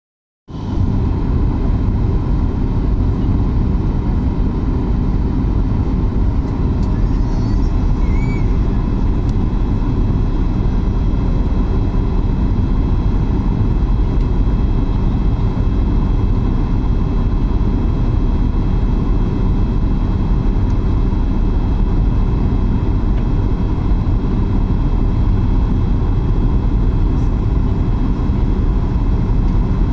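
Steady roar of engine and airflow noise inside the cabin of a Boeing 737-8 MAX airliner, its CFM LEAP-1B turbofans running, with a few faint steady tones over the low rumble.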